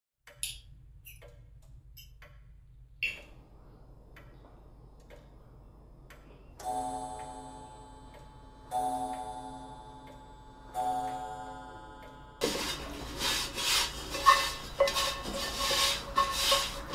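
Irregular light clinks of cutlery on a plate, then three slow chime-like notes that each ring and fade. About twelve seconds in, tap water starts gushing into a metal pot, with a clink or two, and stops near the end.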